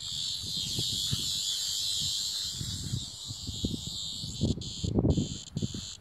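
Cicada giving a loud, harsh, high-pitched buzz that starts suddenly, holds for about four and a half seconds, then breaks into short bursts about twice a second: a disturbed cicada's distress buzz as the puppy goes at it. Rustling and soft thumps in the grass sound underneath.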